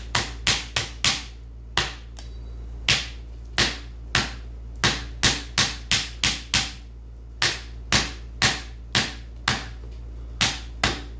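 CRKT Chanceinhell machete chopping repeatedly into a piece of fatwood, resin-rich pine, on a chopping stump: a run of sharp wooden chops, two or three a second, with a couple of short pauses.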